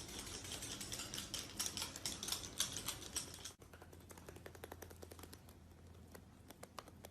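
Faint rapid, irregular clicking or tapping for about three and a half seconds, then sparser, fainter clicks after a sudden break.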